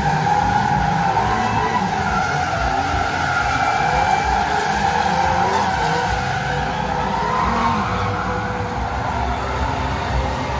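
Stunt cars drifting, with engines running and tyres squealing in a steady wavering squeal.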